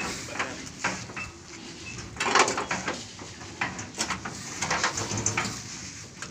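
Irregular knocks, scrapes and clunks of a portable concrete mixer's steel drum and frame being shifted by hand at the edge of a pickup truck bed, with a louder scraping burst about two and a half seconds in.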